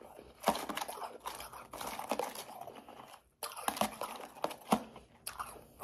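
Powdery, slushy ice crunching and crackling in two runs, with a short break about three seconds in.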